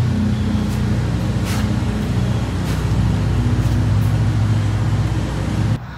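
A steady low machine hum with an engine-like drone that cuts off suddenly near the end.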